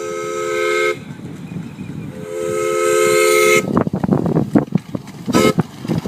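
Train horn sounding a chord of several tones: a one-second blast, then a longer blast of about a second and a half, and a brief toot near the end. Between the longer blast and the toot comes a rattling clatter of wheels and cars going by.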